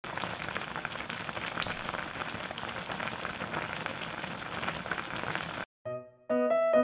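Pot of skate stew (hongeo jjigae) at a full boil: a dense crackle of many small popping bubbles that cuts off suddenly near the end. A moment later, piano notes begin.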